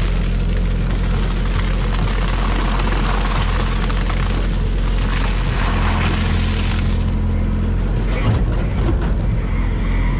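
Gregoire G106 grape harvester's engine running steadily as its bin tips and a stream of grapes rushes into a steel hopper. The rush of grapes dies away about seven seconds in, leaving the engine drone and a few knocks.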